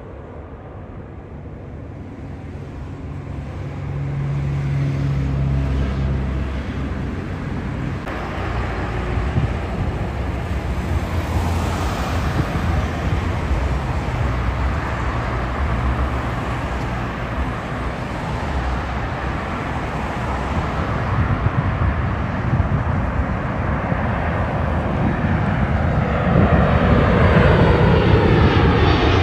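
Twin-engine jet airliners on final approach passing low overhead, a steady jet rush that builds as each comes closer. Near the end an Uzbekistan Airways Boeing 767-300ER goes over louder, its pitch falling as it passes.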